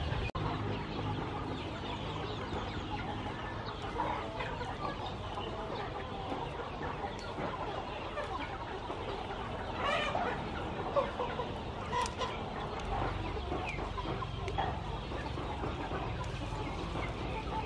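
Chickens clucking now and then, with a few louder calls about ten and twelve seconds in.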